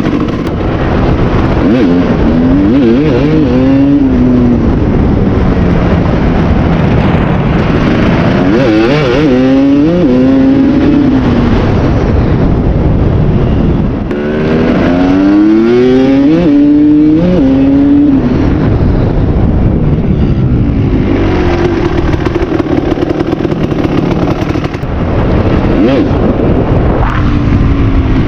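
Kawasaki KX250 single-cylinder two-stroke dirt bike engine, fitted with a different exhaust, accelerating hard three times. Each time the pitch climbs in steps through several gear changes, then drops back off the throttle.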